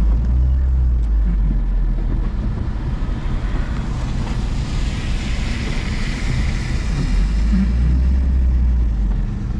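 Car engine idling, heard from inside the cabin as a steady low rumble. A hiss swells and fades in the middle.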